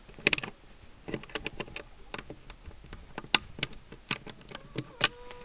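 Metal latch on a wooden nest-box door being worked by hand: a string of irregular light metallic clicks and rattles.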